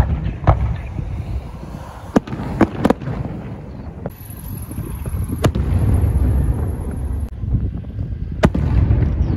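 Fireworks display: aerial shells bursting with about seven sharp bangs, several close together around two to three seconds in, over a continuous low rumble.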